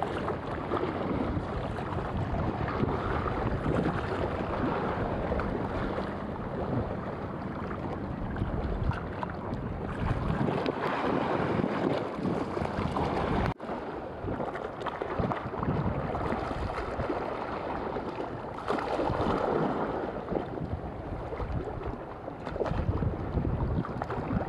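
Wind buffeting the camera microphone over choppy sea water: a steady rushing noise that cuts out for an instant about halfway through.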